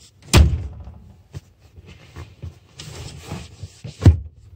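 Rear folding bench seat of a 1992–96 Ford F-150 extended cab being closed back up: a loud thump just after the start, rustling and rubbing of the seat in the middle, and a second loud thump near the end.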